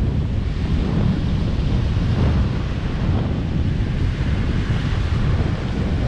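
Ocean waves washing on the shore, with wind buffeting the microphone in a steady low rumble under the hiss of the surf.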